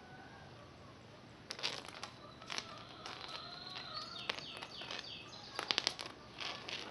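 A small stone clicking and tapping on a hard floor as a kitten bats it about: scattered sharp taps, with the loudest quick cluster near the end. Birds chirp in the background, with a short run of falling chirps midway.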